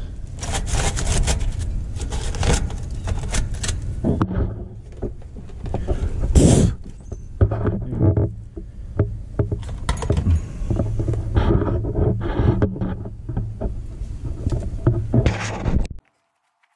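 A stiff nylon brush scraping and knocking around the wiring and sheet-metal control panel of an air-conditioner condenser, with irregular clicks and scrapes over a low rumble. The sound cuts off abruptly near the end.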